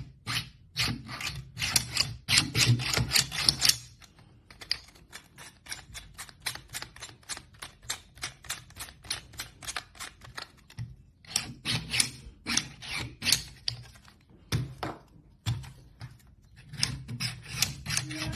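3D printer at work: a rapid, irregular run of sharp mechanical clicks and taps, several a second, louder in some stretches and fainter in others.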